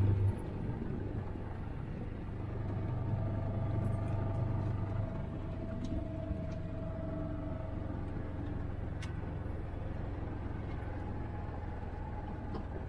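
Vehicle engine running steadily as it drives along a dirt road, heard from inside the cab. A loud low hum drops away just after the start, leaving a steady, quieter rumble.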